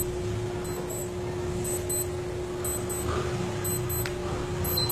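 Steady background room noise: a low rumble with a constant hum.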